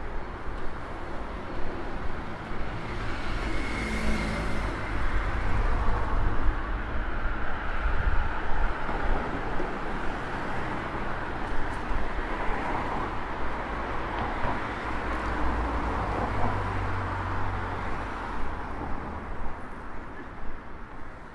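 City street traffic: cars passing on a wide road, a steady low rumble of engines and tyre noise that rises and falls as vehicles go by.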